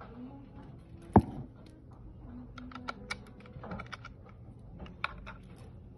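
Small clicks and taps of the parts of a K19+ RF bug detector being handled as its antenna and probe-cable connector are fitted to the body, with one sharp knock about a second in.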